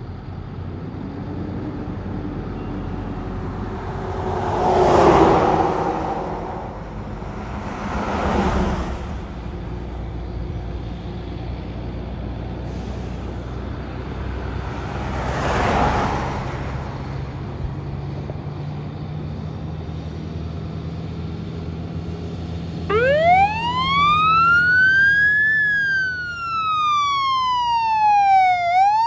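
Diesel fire truck engines running, with three loud rushes of noise early and midway. About 23 s in, a fire apparatus siren starts in a wail, rising, falling and rising again.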